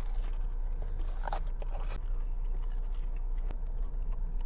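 Close chewing and crunching of a crisp deep-fried sushi roll, with a few sharp crackles a little over a second in.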